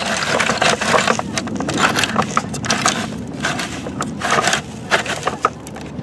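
Dirt and grit crunching and rattling as a toy cement mixer pours out its load of "concrete", a dense run of small irregular clicks and scrapes.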